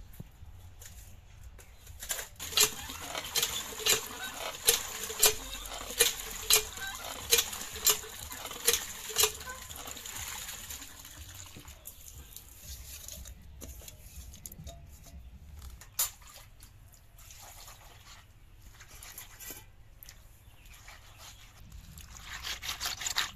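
Cast-iron hand pump being worked: the handle clanks about a dozen times, roughly once every two-thirds of a second, while water splashes into a metal pot, and the pumping stops about ten seconds in. Near the end, hands rub and scrape a pile of wet small fish on concrete.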